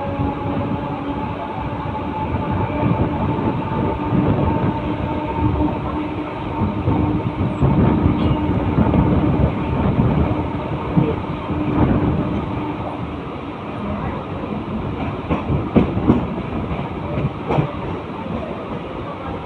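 Mumbai suburban electric local train running at speed: steady rumble and a humming tone that fades out about two-thirds through, then a run of sharp clacks from the wheels over rail joints near the end.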